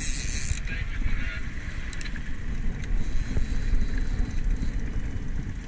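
Boat running at trolling speed: wind rumbling on the microphone over the wash of the wake and a Honda 150 outboard motor running steadily, with a brief hiss at the very start.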